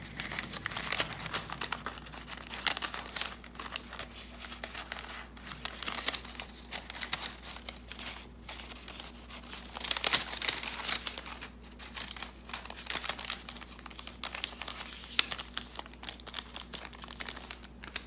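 Paper rustling and crinkling as paper ephemera, tags and card are handled and pulled from a mail-art envelope, with clusters of small crackles and ticks that come and go.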